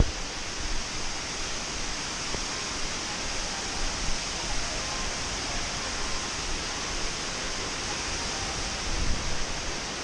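Waterfall pouring down a rock face: a steady rush of falling water.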